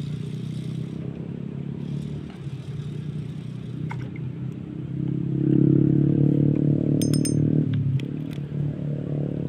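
A small engine running steadily, growing louder about halfway through and easing back a little under three seconds later. A few quick metallic clicks sound near the louder stretch.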